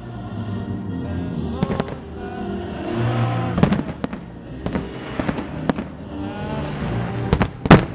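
Fireworks salute going off: a series of sharp bangs, a few seconds apart, with the loudest double bang near the end, over music playing.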